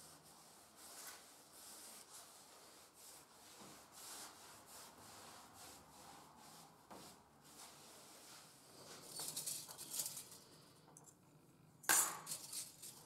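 Faint rubbing and brushing of a cloth and brush over the wooden surface of an old chest, with a louder run of strokes about nine seconds in. Near the end, a sharp clink of thin metal graining combs being handled on a workbench.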